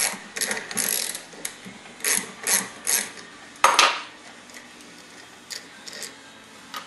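Bolts being turned out of an MCP brake caliper with a hand wrench: a run of short metallic clicks and scrapes over the first three seconds, a sharper click a little before four seconds in, then a few faint ticks.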